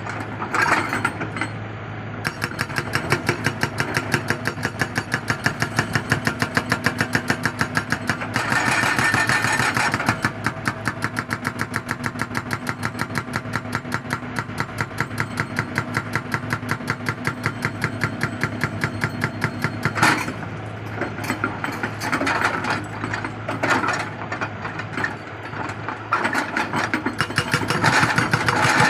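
Excavator-mounted hydraulic rock breaker hammering in rapid, even blows over the running diesel engine. It stops with a sharp knock about two-thirds of the way through, leaving the engine running with irregular knocks.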